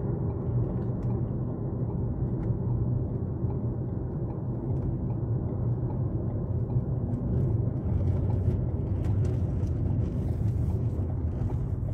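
Car driving on the road, heard from inside the cabin: a steady low rumble of engine and tyres.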